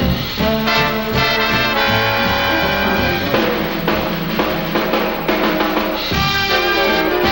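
Swing big band playing: a brass section of trumpets and trombones over a drum kit.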